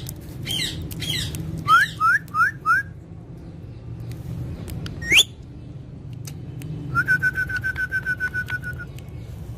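Pet parrot whistling and chirping: four short rising chirps, a single sharp upward whistle about five seconds in, then a quick run of about fifteen short notes on one pitch, roughly eight a second.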